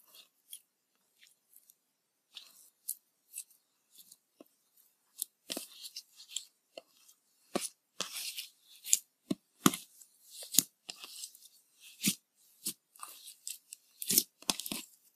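Clear slime with green glitter being stretched, folded and pressed by hand, giving irregular crackles and pops. They come sparsely at first and grow denser and louder from about five seconds in.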